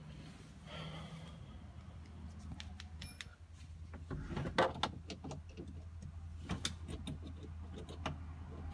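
Scattered clicks, knocks and rustles from handling inside a car's cabin, with a louder clatter about four and a half seconds in, over a steady low hum.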